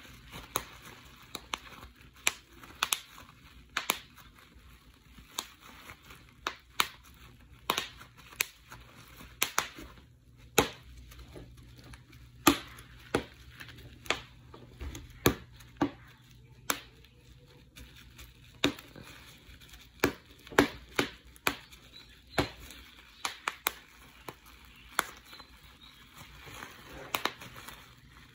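Plastic bubble wrap being popped by pinching the bubbles between fingers and thumbs: sharp, irregular pops about one or two a second, with the crinkling of the plastic sheet between them.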